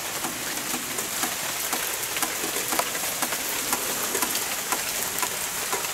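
Steady rain falling on foliage and wooden surfaces, with many separate drops ticking close by.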